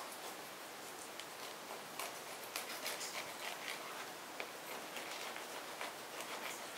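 Small kitchen knife cutting and scraping through a torpedo scad on a plastic cutting board: a run of soft crisp ticks and scrapes, busiest about two to four seconds in.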